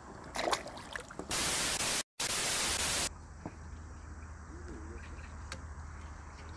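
A loud, even static-like hiss lasting about two seconds, cut by a split-second dropout, starting and stopping abruptly. It is followed by a low steady hum.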